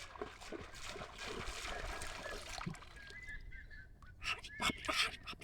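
River water splashing and sloshing as a hooked fish struggles on the line, with a few sharper splashes about four to five seconds in.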